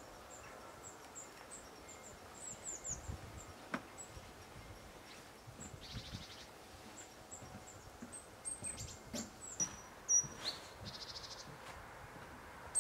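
Small birds chirping and calling, many short high notes with two brief buzzy trills. Underneath are rustling and a few sharp knocks as plants are pulled and a plastic bucket is handled and carried.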